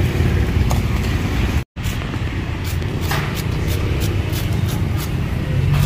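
Steady low rumble of passing motor traffic. After a brief dropout, a knife slices through a bundle of lemongrass stalks with rapid, evenly spaced chopping clicks, about three to four a second.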